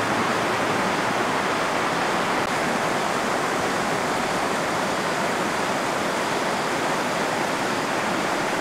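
River rapids rushing steadily, an even continuous wash of water.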